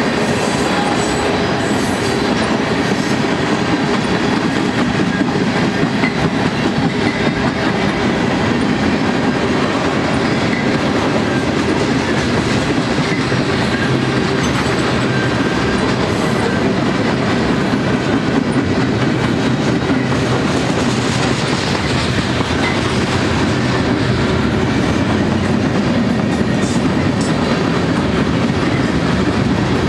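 Freight train of boxcars and tank cars rolling past at a steady speed: a steady rolling noise of steel wheels on rail, with occasional faint clicks.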